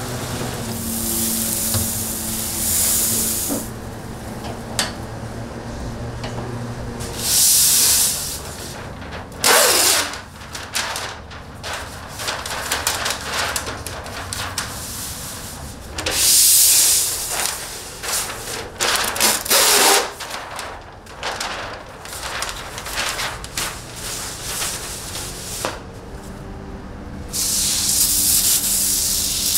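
Spray bottle spritzing a mix of apple juice, vinegar and water onto slow-smoking barbecue meat, in several separate hissing bursts of a second or two each.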